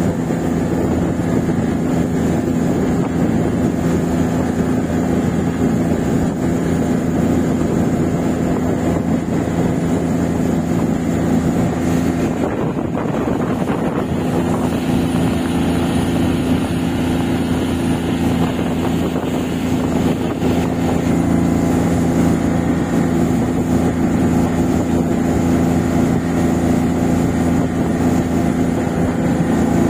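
Boat engine running steadily under way, a constant low hum.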